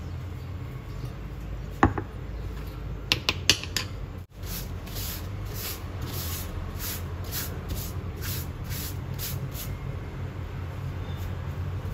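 A cloth wiping a wooden cutting board in quick rubbing strokes, about two or three a second, for some five seconds. Before it come a few light knocks, a wooden spoon handled on the board, all over a steady low rumble.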